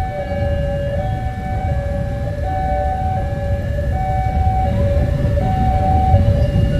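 Railway level-crossing warning alarm sounding a two-tone hi-lo signal, its two pitches swapping about every 0.7 seconds, which warns that a train is coming. A steady low rumble runs underneath and grows slightly louder toward the end.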